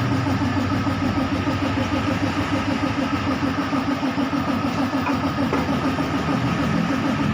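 Mitsubishi 4M40 2.8-litre four-cylinder diesel engine idling steadily with an even, rhythmic pulse.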